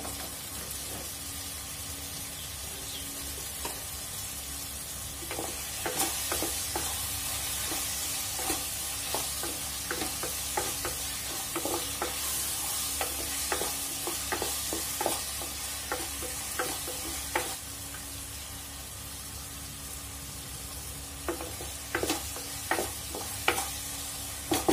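Tomatoes and meat sizzling in an open pressure cooker while a wooden spatula stirs them, clacking and scraping against the pot. The clacks come in a run starting about five seconds in and lasting about twelve seconds, then again near the end.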